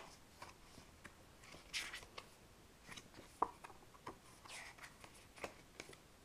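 Pages of a small printed paper manual being turned by hand: two soft paper swishes a few seconds apart, with faint clicks and taps from handling the booklet.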